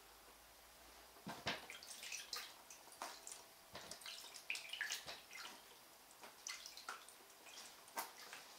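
Water splashing and dripping in a shallow plastic tub as a ferret is washed by hand: faint, irregular small splashes as the water is scooped and poured over the animal, starting about a second in.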